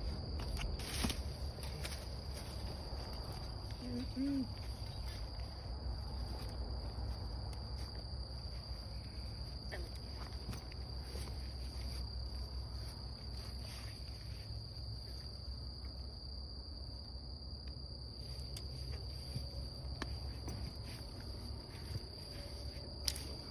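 Crickets singing in a steady, unbroken high-pitched trill, over a low rumble, with a few sharp clicks.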